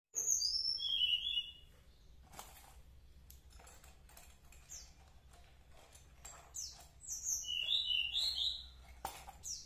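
Small birds chirping in two quick flurries of high, falling chirps, one at the start and one about seven seconds in. In between, faint taps and rustles of a rifle-scope box being opened by hand.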